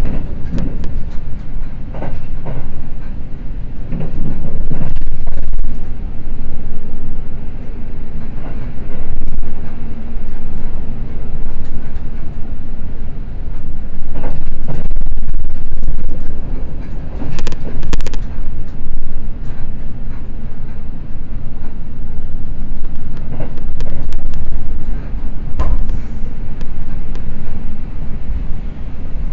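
Seibu Red Arrow limited express train running at speed with a steady low rumble. Irregular sharp clicks and knocks come from the wheels over the track, and the noise swells and eases as it passes through a station.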